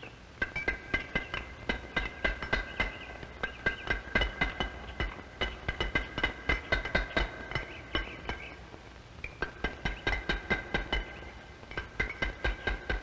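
Hammer striking a chisel on stone in rapid, even taps, about four a second, each with a short metallic ring, pausing briefly near the end before starting again.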